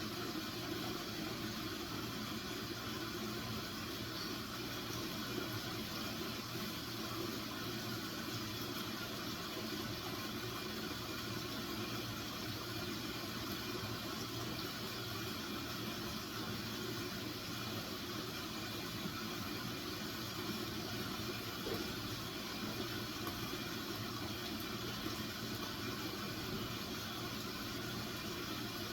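Steady, even hiss with a low hum underneath, unchanging throughout, with no distinct events.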